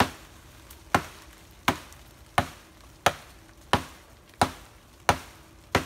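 A blade chopping into wood: nine sharp, evenly spaced strokes, about three every two seconds.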